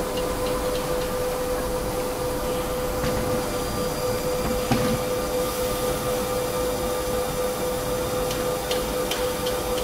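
Metal lathe running with a steady whine over a mechanical hum, and one sharp click about five seconds in.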